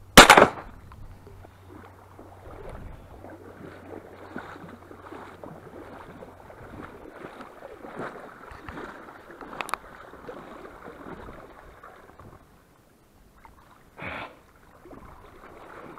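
A single shotgun shot a moment in, by far the loudest sound, followed by uneven sloshing and splashing in shallow water. Near the end comes a short splash as the shot duck is pulled out of the water.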